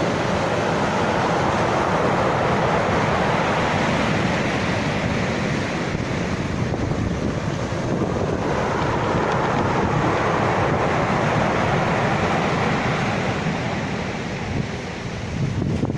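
Sea surf: a continuous rush of breaking and washing waves, easing slightly near the end.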